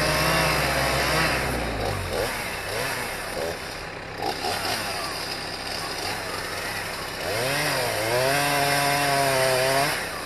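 Chainsaw engine revving: held at high revs, then dropping back. It blips up and down through the middle, and about seven and a half seconds in it climbs to full revs again and holds there.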